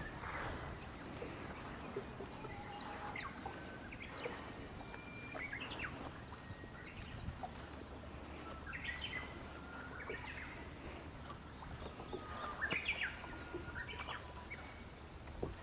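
Songbirds singing clear whistled phrases that repeat every few seconds, among them a Japanese bush warbler (uguisu), over a low steady hum.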